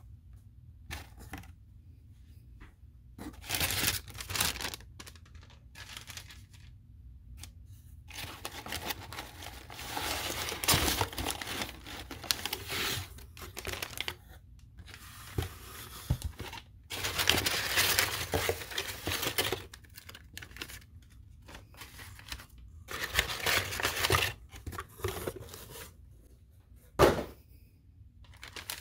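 Cardboard box being opened and its brown kraft-paper packing handled: paper rustling, crinkling and tearing in irregular bursts, with one sharp knock near the end.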